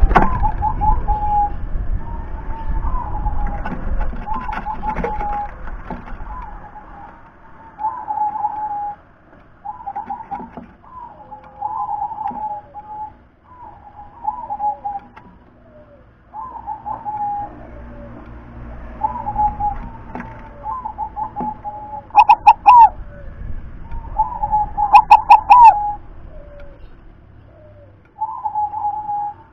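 Zebra dove (perkutut) singing: a steady series of short, rapid staccato coo phrases, one every second or two, with two louder, stuttering phrases near the end. A low rumble sits underneath the first several seconds.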